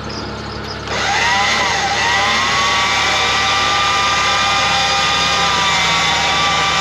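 A motor starts about a second in with a whine that rises as it spins up, then runs steadily with small dips in pitch under load. A vehicle engine idles underneath.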